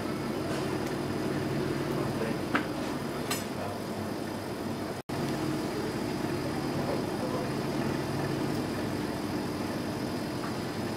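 Steady machine hum with a few light clinks. The sound drops out for an instant about five seconds in.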